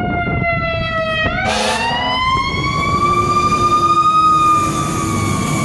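Very loud fire truck siren wailing close by: its pitch sinks, then about a second and a half in sweeps slowly back up and starts to fall again near the end. A short harsh blast of noise comes just as the rise begins.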